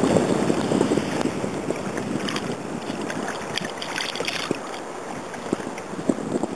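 A hooked fish splashing at the surface as it is reeled up and lifted out of the sea, with sharp splashes from about two seconds in that stop near the middle. Underneath, a steady rush of wind and water that eases off after the first second.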